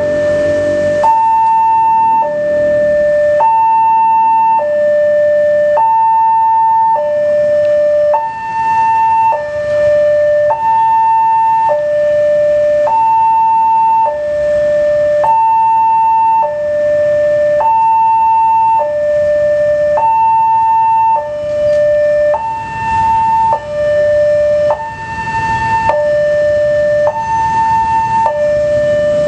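Indonesian railway level-crossing alarm sounding from a horn loudspeaker, warning of an approaching train with the barrier down. It is an electronic two-tone, a high note and a lower note alternating about once a second, over a steady higher whine. Road traffic and motorbikes run underneath.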